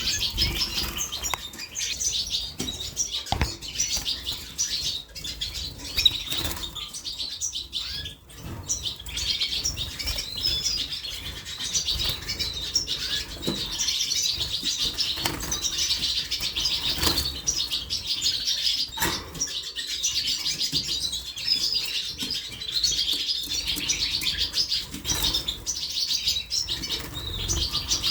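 Canaries chirping and twittering continuously, with occasional brief wing flutters and soft knocks.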